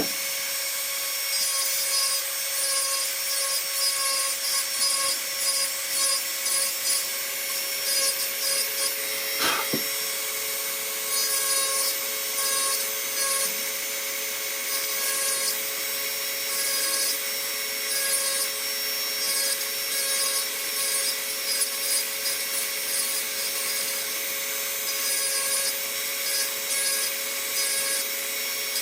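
Dremel rotary tool running at a steady high whine while its burr grinds into wood in short, repeated passes, detail-carving a wooden figure. There is one light knock about ten seconds in.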